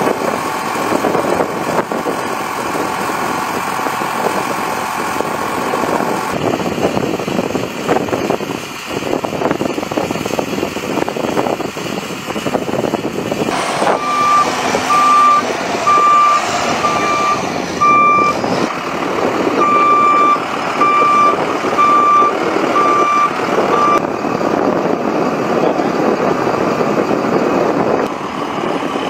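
Aircraft tow tractor's engine running, its reversing alarm beeping steadily, a little more than once a second, for about ten seconds in the middle while it backs up.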